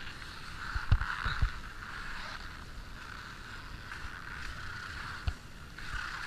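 Alpine skis sliding over groomed, corduroy-textured snow: a steady scraping hiss, with a few low thumps about a second in and one more near the end.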